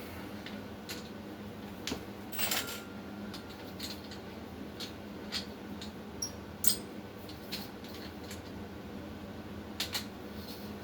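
Scattered light clicks, clinks and knocks of tools and a compound bucket being handled while setting up to mix drywall topping, over a faint steady hum; a few louder knocks about two and a half, six and a half and ten seconds in.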